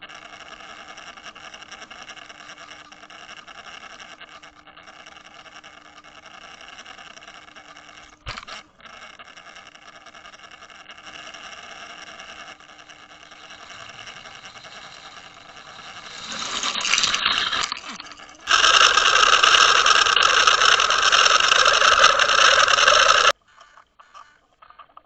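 Steady underwater hum and rush of water over a towed underwater camera's housing, with the drone of a boat motor carried through the water. About two thirds of the way through it swells and then jumps much louder, before cutting off suddenly near the end.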